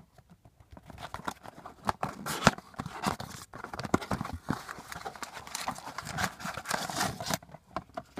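A trading-card blaster box being opened by hand: irregular crackling, crinkling and tearing of its wrapping and cardboard, with a sharp click about two and a half seconds in.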